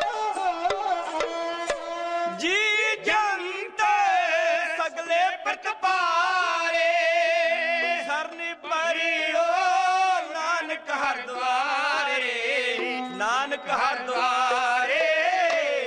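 Dhadi music: men singing with wavering vibrato, accompanied by a bowed sarangi and the taps of small dhadd hand drums.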